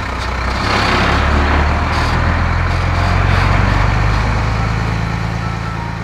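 Heavy tank truck engine running, a cartoon sound effect that swells to a peak midway and then fades toward the end.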